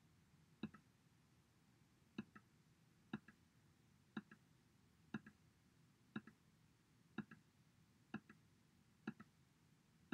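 Near silence except for faint, sharp double ticks at a steady pace of about one a second. One gap near the start is longer.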